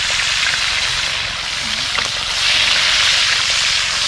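Fish frying in hot oil in a pot: a steady sizzle that swells louder about two seconds in.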